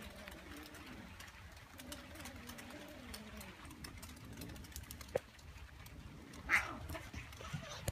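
A low, wavering animal call that slides up and down in pitch for the first few seconds, then a sharp click a little after five seconds in and a brief louder burst of noise about six and a half seconds in.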